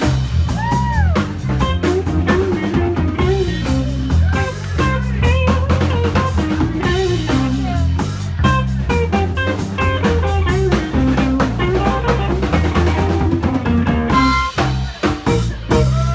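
A live blues band playing an instrumental stretch, with drum kit, bass and guitar bending notes over a steady groove.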